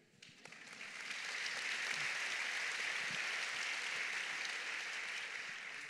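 Audience applause: a steady wash of many hands clapping that builds up over the first second and eases off near the end.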